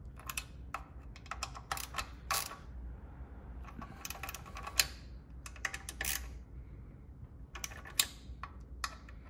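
Hand ratchet fitted with a Torx bit clicking in short quick runs as its handle is swung back and forth, tightening small screws into a metal plate.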